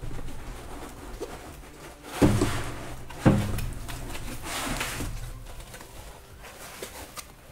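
Dense packing foam and a cardboard box rubbing and scraping as a foam-packed 3D printer is pulled up out of the box, with two dull thumps about two and three seconds in.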